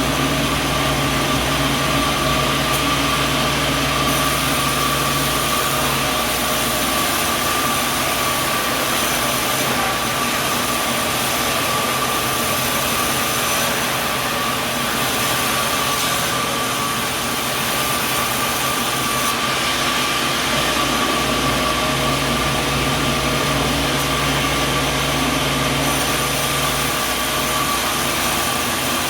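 Machinery running steadily with a constant high whine over a broad noise, its low hum dropping away about six seconds in and coming back a little after twenty seconds.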